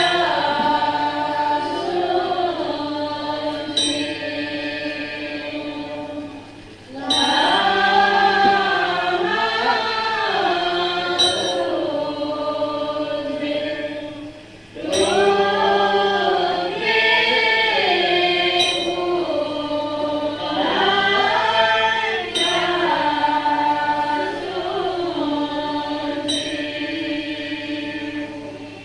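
A group of voices chanting a melodic Buddhist prayer in unison, in long phrases broken by short pauses about 7 and 15 seconds in, over a steady low electrical hum.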